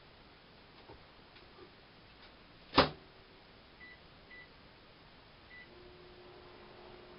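Microwave oven door shut with a loud clack, then three short high keypad beeps as a 10-second reheat is set and started, and the oven's steady low hum starts up near the end.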